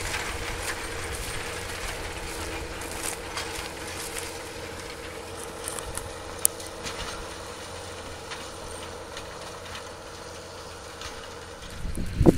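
John Deere 7820's six-cylinder diesel engine working under heavy load as it pulls a five-bottom moldboard plow through wet ground: a steady drone that grows fainter as the tractor moves away. A single sharp click about halfway through, and wind buffeting the microphone at the very end.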